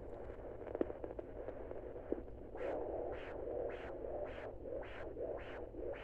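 Pocket fetal Doppler loudspeaker hissing, with a couple of sharp clicks as the probe moves. About two and a half seconds in, a regular whooshing heartbeat pulse sets in at a little under two beats a second.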